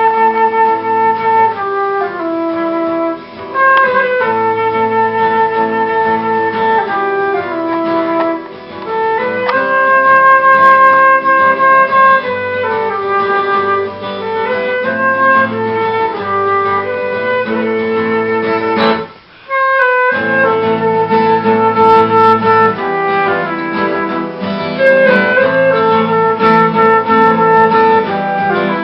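Live acoustic music: a wind instrument plays a melody of long held notes over guitar, breaking off for about a second roughly two-thirds of the way through.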